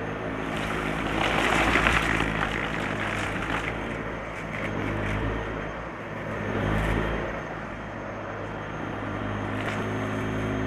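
Dyson Light Ball upright vacuum cleaner running with a steady motor hum, crunching and crackling as it sucks up crunchy debris, loudest about one to two seconds in.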